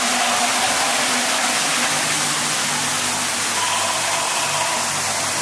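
Waterfall on an indoor boat ride cascading into a pool: a steady rushing hiss of falling water, with faint held tones underneath.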